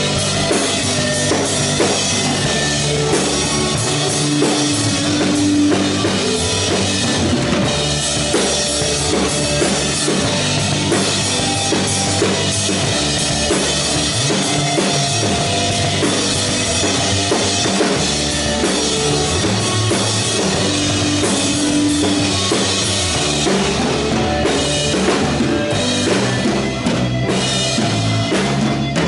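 A live band playing, with the drum kit close by and loudest: a steady beat on bass drum, snare and cymbals under held keyboard notes.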